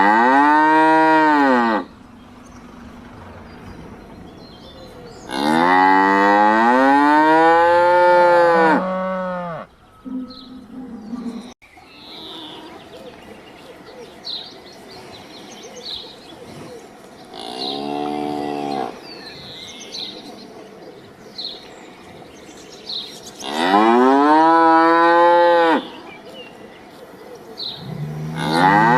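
Cattle mooing: five moos spaced several seconds apart, each swelling and falling in pitch. The longest lasts about four seconds, and the one in the middle is quieter.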